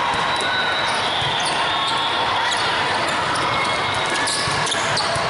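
Volleyball play in a large echoing hall: a serve struck, then the ball hit several more times in a rally, over steady crowd noise.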